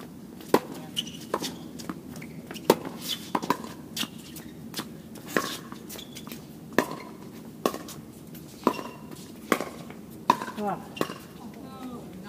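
Tennis rally: a string of sharp pops from racket strings striking the ball and the ball bouncing on the court, about one a second.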